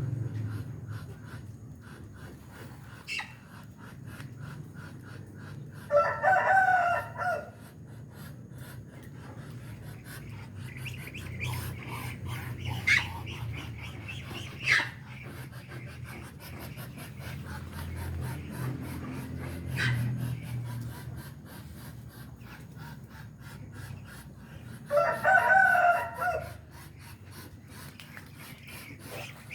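A rooster crowing twice, each crow about a second and a half long, with a few short bird chirps between the crows over a low steady background hum.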